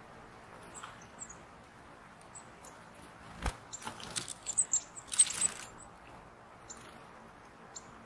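Small woodland birds calling with short, high chirps. About halfway through there is a sharp knock, then a quick flurry of wing flutters and light taps as a blue tit lands on and moves about the log.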